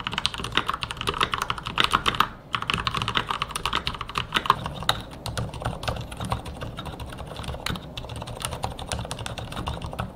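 Fast typing on fully lubricated Marspro mechanical keyboards: a dense run of keystroke clacks with no spring ping, the mark of the full switch lubrication. A brief pause comes about two seconds in, and from about halfway the keystrokes turn softer and duller.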